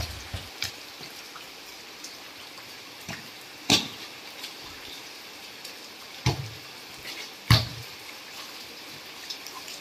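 Heavy rain hissing steadily on a wet concrete court, broken by a few sharp slaps of hands striking a wet volleyball, the loudest about four and seven and a half seconds in.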